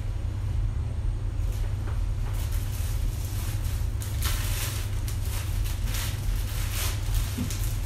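Plastic packaging and paper rustling in many short scrapes and crinkles, starting about two seconds in, as clothes are handled and packed. A steady low rumble runs underneath.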